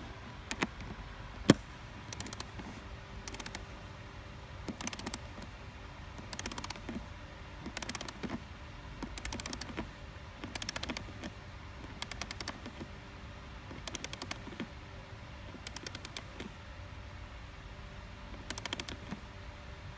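Ratchet of a click-type torque wrench swung back and forth on a 7/16 socket, clicking in short rapid runs about once every second or so as a float-shell nut is tightened. One sharp metal click stands out about a second and a half in.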